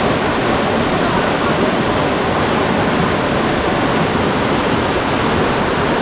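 Waterfall in full rainy-season flow: steady, loud rushing of falling water.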